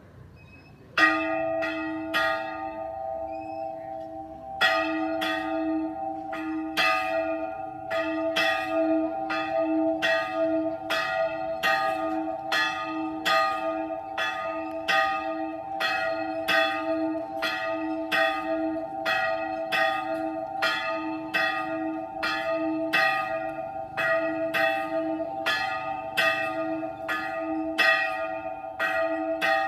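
A church bell ringing: strokes at one unchanging pitch, each ringing on into the next. It starts about a second in with three strokes, pauses briefly, then rings steadily at about two strokes a second.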